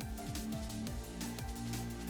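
Electronic background music with a steady beat and falling bass sweeps.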